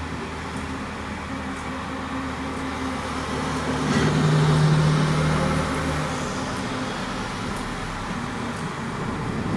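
Steady road traffic noise with a low hum, swelling as a vehicle passes about four seconds in and fading again about two seconds later.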